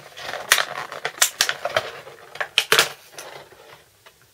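Handling noise from a small fingerboard box being opened and the deck worked out of its packaging: a quick run of irregular scrapes, clicks and rattles that dies away about three seconds in.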